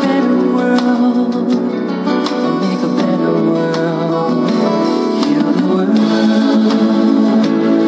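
Recorded music with guitar and a steady beat.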